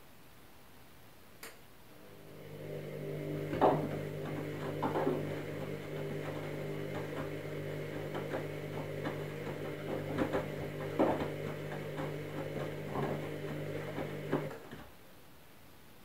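Candy front-loading washing machine turning its drum during the wash: a single click, then a steady motor hum starting about two seconds in, with irregular soft thuds and sloshing from the wet load. The hum stops suddenly about a second before the end.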